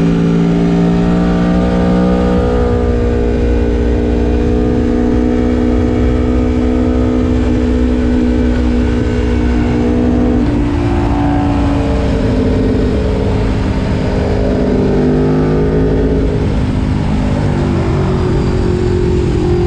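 Aprilia Tuono V4 Factory's V4 engine running hard under load, heard from the bike itself with wind rush on the microphone. Its pitch holds high and steady for about ten seconds, drops, then climbs again in the second half and falls away near the end.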